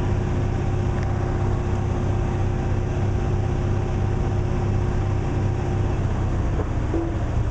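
Truck engine idling steadily: an even, low rumble with a faint steady hum over it.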